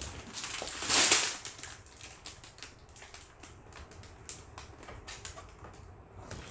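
Unboxing noises from a LEGO Technic set: a burst of plastic-bag crinkling and box handling about a second in, then a run of small, irregular clicks and taps as the box and bagged parts are handled.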